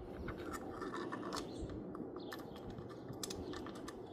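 Light handling noises, scattered clicks and scraping, as small hardware or tools are moved about.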